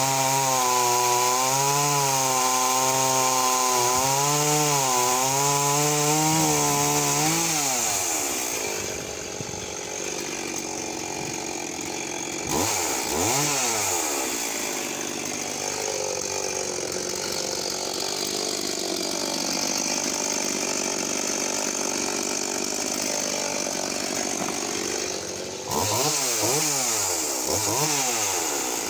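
Tanaka ECV-5501 two-stroke chainsaw running at full throttle through a log, its pitch wavering slightly under load. About seven seconds in the revs fall away and it runs at low speed, with a short rev around thirteen seconds and more revving near the end.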